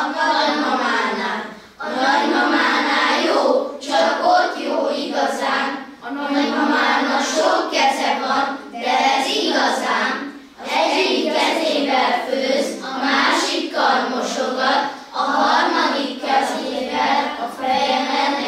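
A group of children singing together as a choir, in phrases of about two seconds with short breaks between them.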